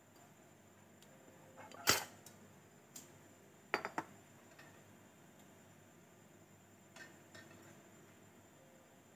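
Kitchenware clattering as pans and utensils are handled on a gas stovetop: a sharp knock about two seconds in, a quick cluster of clinks near four seconds, and lighter taps around three and seven seconds.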